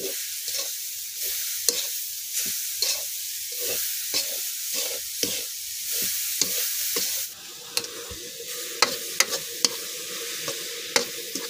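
Grated coconut and sugar frying in a wok and being stirred with a metal spatula: a sizzling hiss with a scraping stroke about every half second. A little past halfway the hiss drops, and the spatula's strokes become sharper clicks against the pan.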